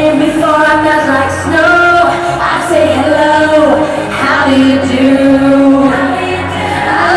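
Live Eurodance music: a woman sings long held notes over a steady bass beat.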